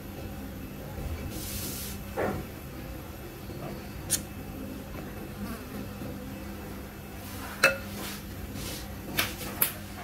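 A steady low hum with a few short, light taps and clicks of a utensil on a dish as whipped cream is spread over a dessert; the loudest tap comes about three quarters of the way through.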